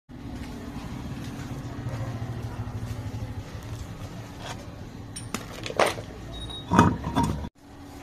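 A steady low engine hum, then a handful of sharp knocks and clatters in the second half, the loudest a little before and after six seconds in.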